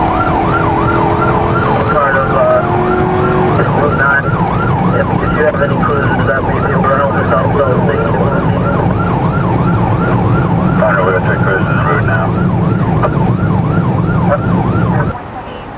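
Police cruiser siren in a fast yelp, heard from inside the moving car, rising and falling about two to three times a second over engine and road noise. Other wavering tones overlap it at times, and it cuts off suddenly near the end.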